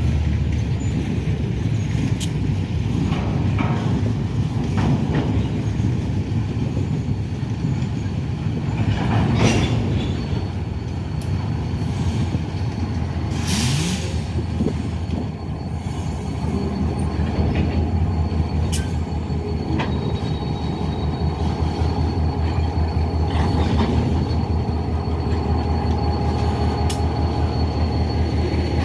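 Freight train rolling by with a steady low rumble of wheels on the rails and scattered clanks. A thin, high wheel squeal comes in about a third of the way through, and there is a short burst of noise near the middle.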